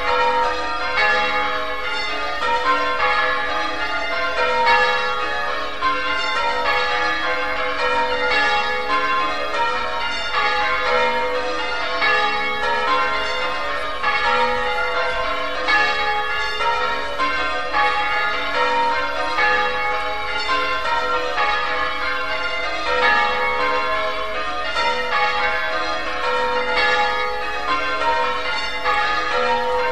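Church bells being rung in sequence, one bell after another, in a steady unbroken pattern, each stroke ringing on into the next.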